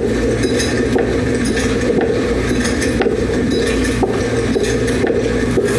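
Officer walking with an Axon Body 2 body camera: the uniform rubs steadily against the camera's microphone, with small clicks of gear and footsteps about twice a second.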